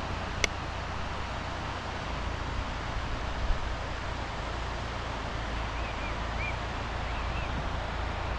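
Wind buffeting the microphone with a steady rush and low rumble. A sharp click comes about half a second in, and a few faint, short high chirps come near the end.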